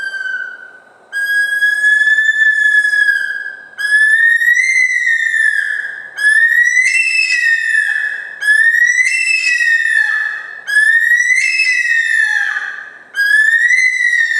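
Bush stone-curlew giving its loud, wailing call at close range: a series of long whistled notes, each about two seconds, rising slightly and then dropping away at the end, repeated about every two and a half seconds.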